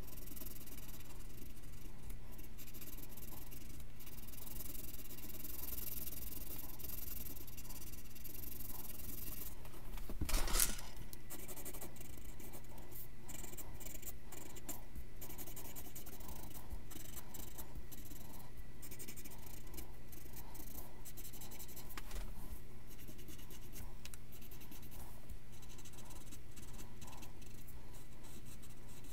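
Pencil scratching across paper in many short strokes as fur and outlines are sketched in, with one louder rub across the paper about ten seconds in.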